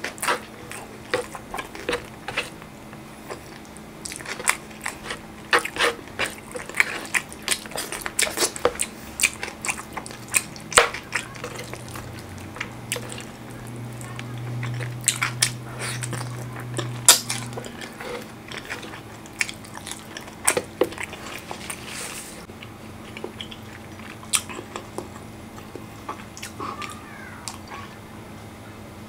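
Close-up eating sounds of chicken in spicy tomato sauce eaten by hand: irregular wet smacks of chewing, biting and finger-licking. A steady low hum lasts a few seconds in the middle, and the smacks grow sparser near the end.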